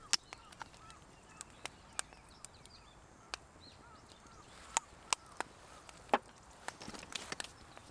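Wood fire crackling, with sharp irregular pops and snaps, a few louder ones near the middle and toward the end.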